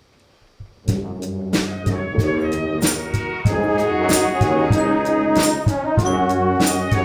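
Instrumental brass-band music: brass chords with drums keeping a steady beat, starting just under a second in after a brief near-silence.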